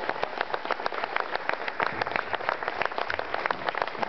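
Audience applauding a play's final blackout: many people clapping, dense and steady.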